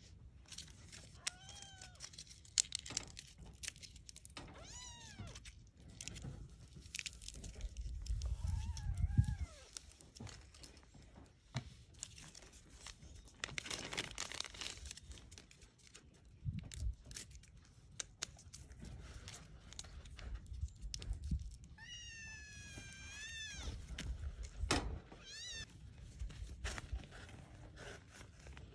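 One-month-old kittens meowing several times, high-pitched calls that rise and fall, the longest coming late on. A plastic zip-lock bag rustles and crinkles near the middle, among light handling clicks.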